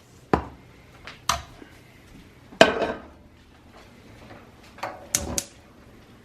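Kitchen dishes and utensils clattering: a string of separate sharp knocks and clinks, the loudest about two and a half seconds in.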